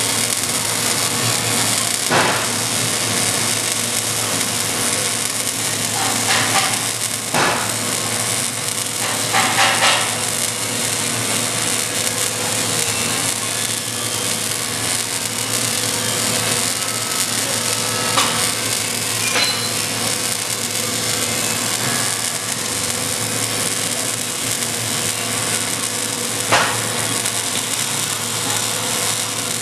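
MIG welding arc on carbon steel pipe, welding the pipe-to-flange joint: a steady hiss with several short, louder pops spread through.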